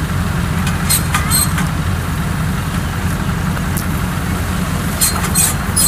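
Kubota DC93 combine harvester's diesel engine running at a steady, even pitch. A few short scuffing sounds come over it about a second in and again near the end.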